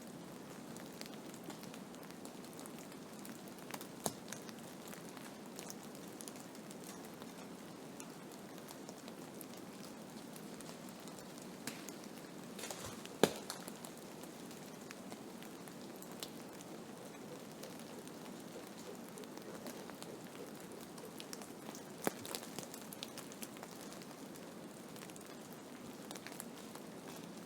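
Blizzard ambience: a steady rushing hiss of wind-driven snow, with scattered sharp ticks, the loudest about halfway through.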